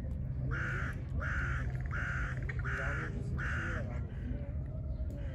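A bird cawing five times in an even series, each call short and alike, over a steady low background hum.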